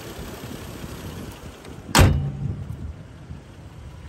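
Car hood slammed shut: a single sharp bang about two seconds in, followed by a short low ring.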